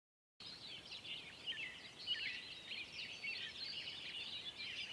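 Faint birdsong: many quick high chirps and trills from small birds over light outdoor background hiss, cutting in abruptly about half a second in.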